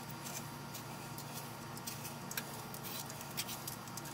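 Hand-held vegetable peeler scraping the skin off a pear in short, irregular scratchy strokes.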